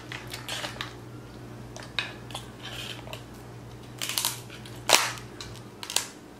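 King crab leg shell cracking and snapping as the leg is broken apart at the joint by hand: a few scattered sharp cracks, the loudest about five seconds in.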